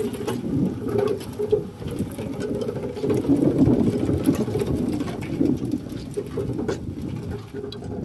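Motorcycle engine running at low speed as the bike rolls slowly on steel-drum rollers in place of its wheels.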